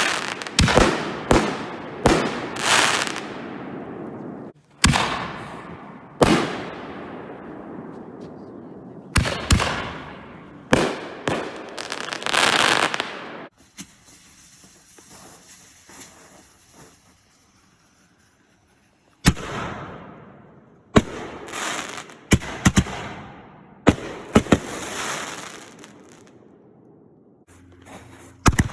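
Consumer aerial fireworks going off: a string of sharp bangs, each trailing off, with a lull of about five seconds midway before the bursts start again.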